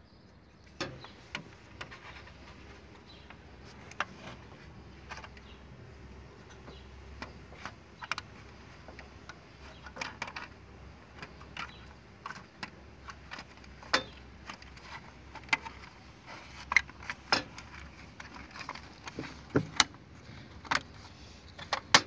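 Irregular plastic clicks and light rattles from a washing machine's control circuit board, its plastic housing and wire connectors being handled and pushed into place, over a faint steady low hum.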